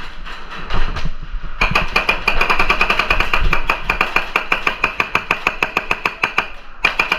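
Airsoft gun firing a long full-auto burst: a rapid, even rattle of shots that starts a couple of seconds in and stops after about five seconds.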